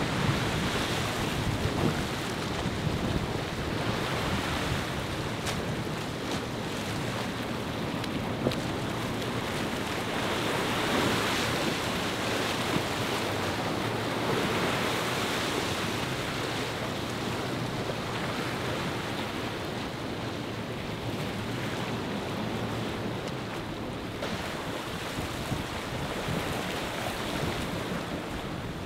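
Choppy inlet water and surf rushing steadily as a motor yacht pushes through the waves, with wind buffeting the microphone.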